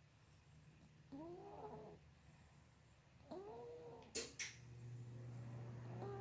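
An animal snoring in its sleep: a pitched, whistling snore that rises and falls, about every two seconds, three times. Two sharp clicks come just after the second snore.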